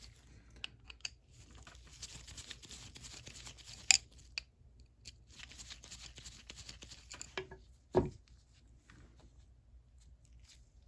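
Hand-handling of a ratchet during its teardown: stretches of scraping and rustling, a sharp click about four seconds in, and a dull knock about eight seconds in.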